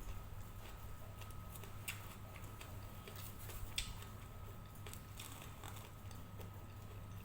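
Scattered light clicks and taps of kitchen utensils, irregular and a few each second, over a steady low hum.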